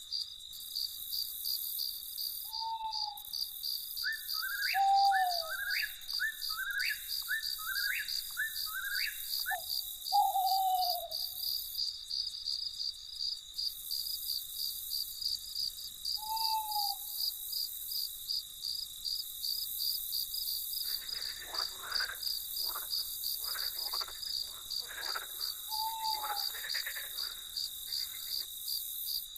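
Night chorus: crickets chirping in a steady, fast pulsing trill, with short single owl hoots every few seconds. A quick run of five rising call notes comes early, and frogs croak in a cluster of rough calls in the second half.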